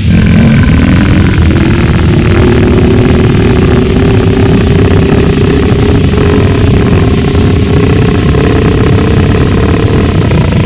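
Gorenoise recording: a loud, unbroken wall of harsh distorted noise, heaviest in the low end. It steps up abruptly at the start, and a droning pitch slides upward over the first couple of seconds, then holds steady.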